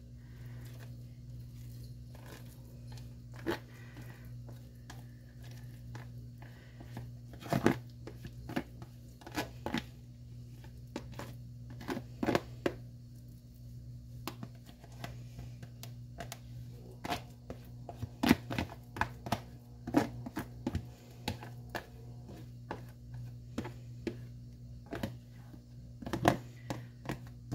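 Pre-made mashed potatoes being scraped and shaken out of a plastic tub into a glass baking dish: scattered scrapes, taps and plastic crinkles, more frequent in the second half, over a steady low hum.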